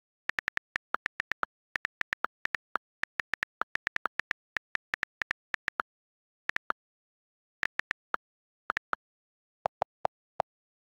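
iPad on-screen keyboard key clicks, the system's typing sounds: quick runs of several sharp ticks a second with short pauses, thinning out later, and a few deeper-pitched clicks near the end.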